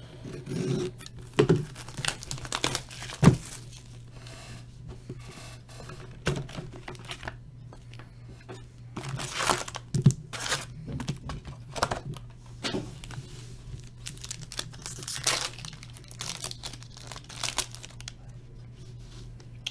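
Hockey trading-card box wrapping and foil card packs being torn open and crinkled by hand: irregular rustling and tearing, with a few sharp clicks.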